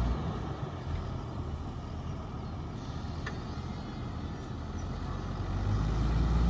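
Tractor engine running under load while pulling a plough, a steady low hum that grows louder over the last second or two.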